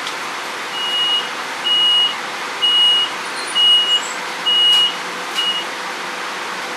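A vehicle warning beeper on a bus sounds six times at one high pitch, about once a second. Each beep lasts about half a second and the last one is cut short, over a steady hiss of background noise.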